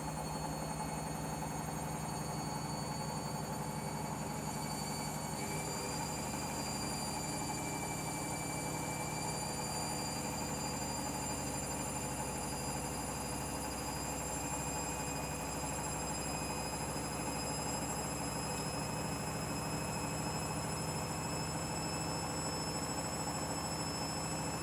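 Candy washing machine running steadily at speed: an even motor hum with a high whine that edges slowly up in pitch, stepping up slightly about five seconds in.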